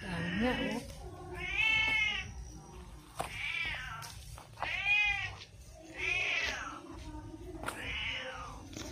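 A cat meowing about five times, each meow under a second and rising then falling in pitch.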